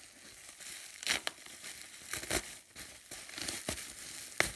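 Plastic bubble wrap being handled and unwrapped: a steady crinkling, with several sharp crackles.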